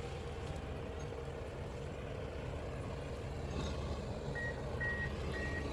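Heavy forestry forwarder's diesel engine running steadily, a low rumble. About two-thirds of the way in, its reversing alarm starts beeping, roughly twice a second.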